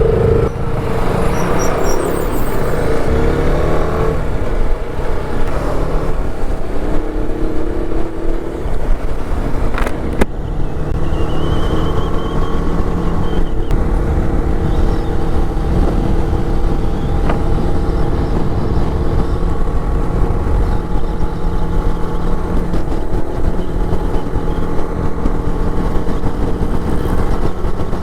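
TVS Apache RR 310 motorcycle's single-cylinder engine running at a steady cruising speed while riding, its note holding nearly constant with only small changes in pitch.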